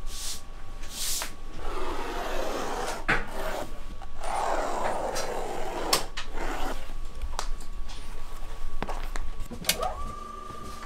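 A leather hide being slid and rubbed across a worktable by hand, in two long scraping spells with a few sharp knocks. Near the end a switch clicks and a three-phase electric motor whirs up to a steady whine.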